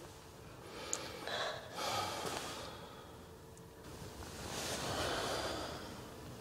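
A person's slow, heavy breaths in and out, three of them, the last one long like a sigh.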